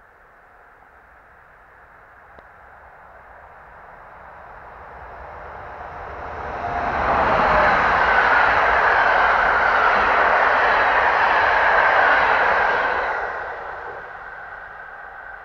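A passenger train hauled by an electric locomotive approaches, grows steadily louder over about seven seconds, passes close by for about six seconds with a rumble of wheels on rail and a high steady whine, then fades as it draws away.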